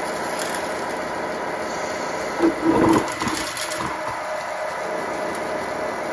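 A 1/14 Tamiya Grand Hauler RC truck's electric motor and gearbox whirring steadily under load while its rear drive wheels spin on dusty concrete against the pull sled. A few brief louder knocks come about two and a half seconds in.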